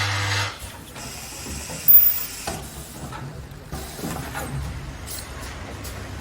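Automatic assembly and ultrasonic welding machine at work: a steady hum cuts off about half a second in. Then come light mechanical clicks and knocks, with one short, sharp, loud burst about two seconds in.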